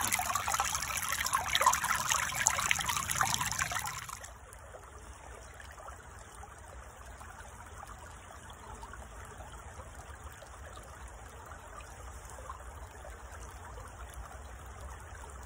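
Water rushing close up over the riffles of a gold sluice box in a creek, with a splashy trickle. About four seconds in it drops suddenly to a quieter, steady running of creek water.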